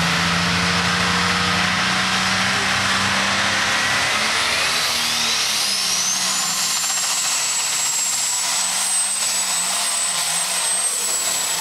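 International pulling tractor's diesel engine running hard as it pulls the sled down the track. It belches black smoke, and a high whine, typical of a turbocharger spooling up, climbs steeply about halfway through and then holds high.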